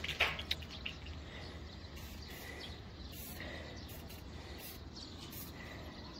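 Quiet outdoor ambience with short bird chirps every second or so over a low steady hum, and a few sharp clicks in the first second.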